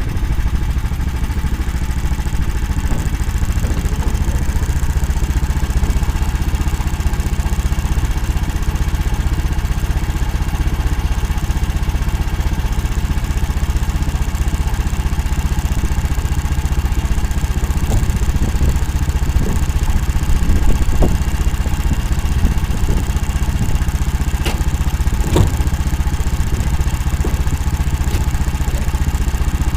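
The engine of an Akula all-terrain vehicle running steadily under way, with scattered clicks and knocks from the vehicle.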